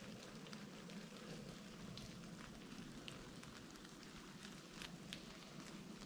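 Faint light rain falling on forest leaves: a steady hiss with scattered single drops ticking.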